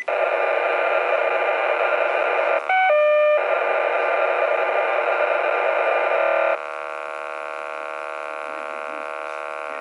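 Pager data signal received on a RadioShack PRO-2051 police scanner and heard through its speaker: a loud harsh data buzz, broken about a quarter of the way in by a short run of stepped beep tones. About two-thirds through it changes to a quieter, steady buzz.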